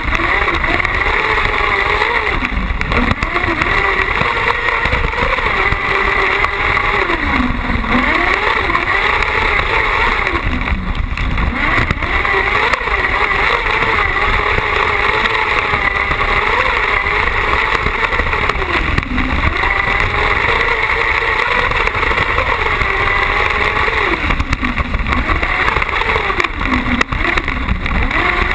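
Carcross buggy's motorcycle engine running hard, close up, its pitch dropping and climbing back about half a dozen times as the driver lifts off and accelerates again through the corners.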